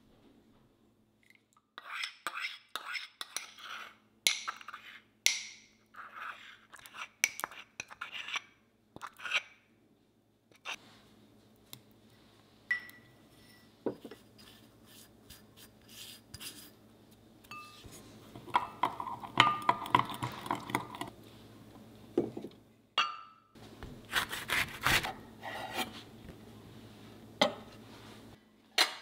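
A metal spoon clinking and scraping in a glass mug while oil, honey, garlic and salt go in for a salad dressing. About two-thirds of the way through there is a run of quick stirring strokes.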